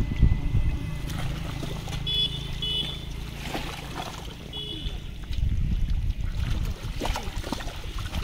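Sloshing and splashing in muddy water as a boy wades and gropes through the mud by hand for small catfish, over a low steady rumble. A few short high chirps come about two to five seconds in.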